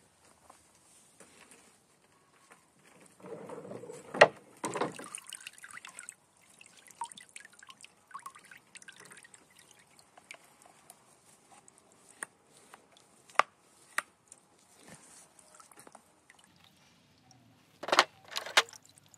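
Rusty steel parts being lifted out of a tub of soaking liquid: splashing and dripping, with a few sharp metal clicks and knocks, the loudest cluster near the end.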